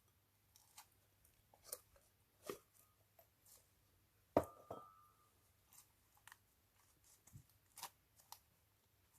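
Faint, sparse handling sounds during slime mixing: scattered small clicks and crackles, with one sharp knock with a brief ring about four seconds in.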